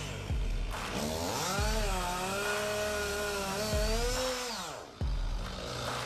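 Chainsaw engine running under load, its pitch sagging and recovering as it cuts, then falling away near the end.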